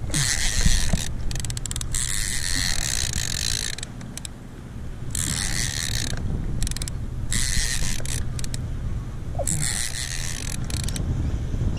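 Fishing reel ratcheting in repeated bursts of about a second each, with short pauses between them, over low wind and water rumble on the microphone.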